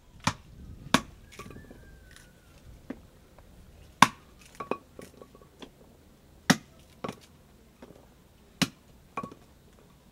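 Babaçu nuts being cracked by hand: sharp, irregular knocks about every one to two seconds, often a hard blow followed by a lighter one, several leaving a brief metallic ring.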